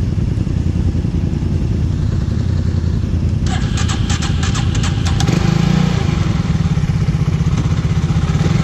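Quad engine running at a steady idle, with a quick burst of rattling clicks about three and a half seconds in. From about five seconds in the engine note rises and gets louder under a little throttle.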